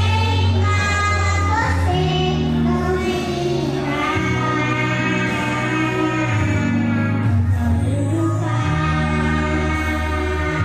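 Two young girls singing a Christian worship song into microphones over instrumental accompaniment, with long held notes.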